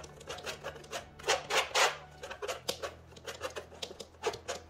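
Metal palette knife scraping and tapping acrylic paint on a canvas-board palette: a run of quick, irregular scrapes and clicks, busiest between one and two seconds in.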